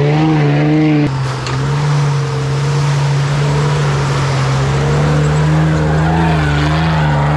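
Off-road 4x4's engine running steadily under load, a deep even drone that dips briefly about a second in.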